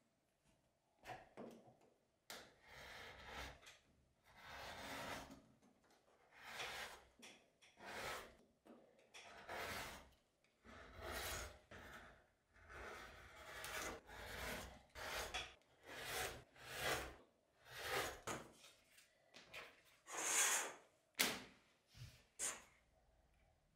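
Repeated rubbing and scraping strokes, roughly one a second, as leather and a taped paper template are pressed, handled and cut along a steel ruler on a cutting mat. There are a few sharper clicks near the end.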